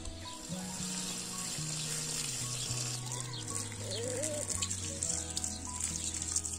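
Water from a garden hose running and splashing onto tomatoes and a pepper in a plastic colander, starting about half a second in.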